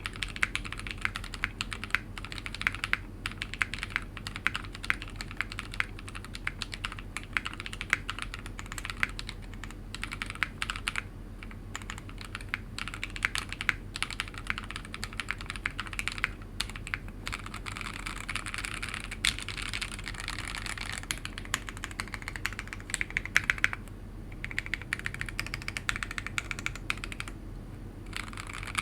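Continuous typing on a WT60-D mechanical keyboard with lubed, filmed Raed switches and PBT Cherry-profile ModernJA keycaps on a polycarbonate plate in a resin case: quick runs of keystrokes broken by a few brief pauses.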